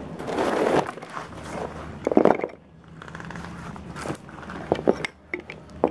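Handling noises from parts and packaging: rustling and scraping, a sharp knock about two seconds in, and a few light clicks and taps near the end.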